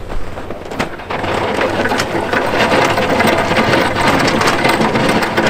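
Truck-mounted snowplow blade pushing and scraping packed snow over frozen ground: a dense crackling, crunching scrape that grows louder about a second in.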